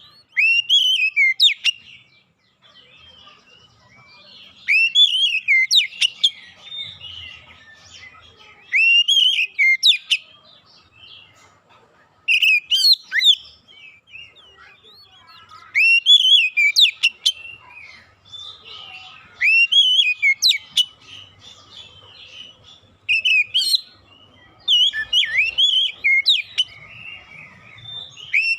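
Oriental magpie-robin (kacer) song: loud phrases of sweeping whistled notes and sharp clicks, repeated about every four seconds with quieter twittering in between.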